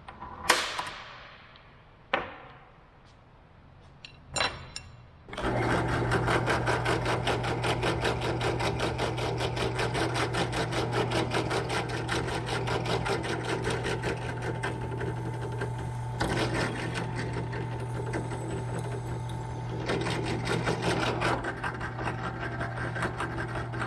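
A few knocks and clinks of parts being set on the table, then about five seconds in a benchtop drill press switches on and runs with a steady motor hum and a fast, even whirring rhythm that cuts off at the end.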